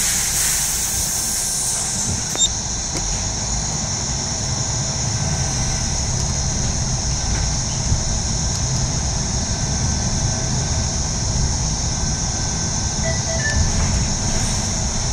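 Cabin sound of a Mercedes-Benz Citaro G articulated diesel bus under way: a steady engine and road rumble with a constant high whine. A brief hiss rises over it at the start and dies away within two seconds.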